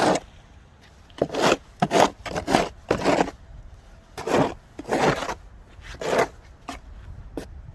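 Snow crunching in a series of short, sharp scrapes, about ten of them, spaced irregularly half a second to a second apart.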